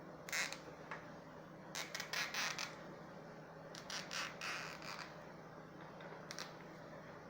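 Plastic zip tie being pulled tight around a cable, ratcheting in several short runs of quick raspy clicks.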